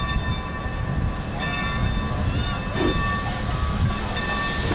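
1924 Baldwin 2-8-2 steam locomotive blowing steam out low at track level: a hiss over a steady low rumble, with a few thin steady high tones and a brief wavering squeal about two seconds in.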